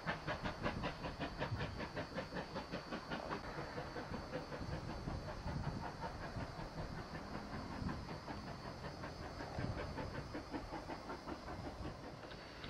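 Ex-Port Talbot Railway GWR 0-6-0 saddle tank steam locomotive No. 813 chuffing as it hauls its train, with rapid even exhaust beats of about four a second. The beats grow less distinct after about four seconds.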